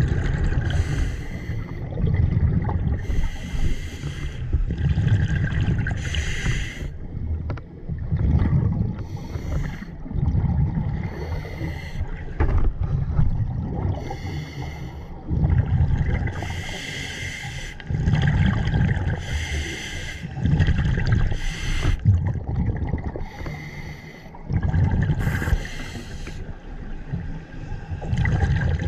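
Scuba diver breathing through a regulator underwater, heard through the camera housing: a hissing inhale alternating with a rumble of exhaled bubbles, repeating every few seconds.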